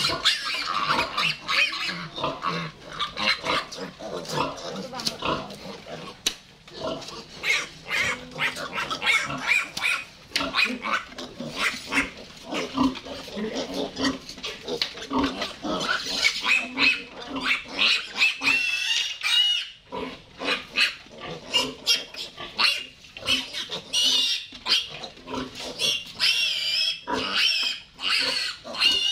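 Piglet squealing shrilly and repeatedly while restrained by its hind legs for castration: a near-continuous run of short squeals and screams that pauses briefly about two-thirds of the way through, with long wavering squeals near the end.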